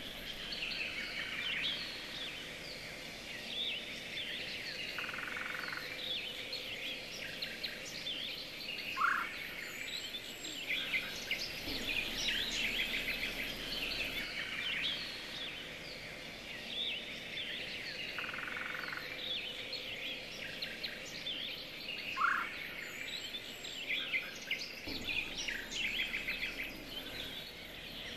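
Chorus of small songbirds chirping and trilling continuously, with a short rising whistle twice, about thirteen seconds apart.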